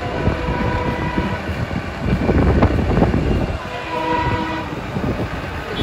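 Street traffic heard from a moving vehicle: a steady road and wind rumble, loudest in the middle, with a vehicle horn sounding twice, once for about a second near the start and again more briefly about four seconds in.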